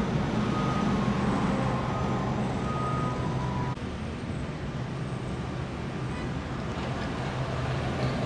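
Road traffic, a steady wash of passing vehicles with a low engine hum from a heavy vehicle among them, easing a little about four seconds in.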